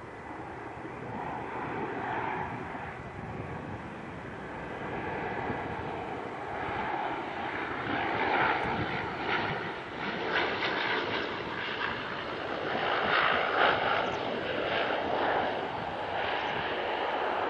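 Propeller aircraft's piston engine running as the plane passes, the drone growing louder over several seconds and easing slightly near the end.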